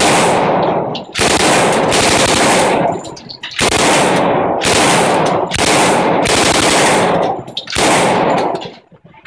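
Thompson submachine gun (tommy gun) firing .45 ACP on full automatic in about seven bursts, from half a second to nearly two seconds long, with short pauses between them, echoing off the walls of an indoor range.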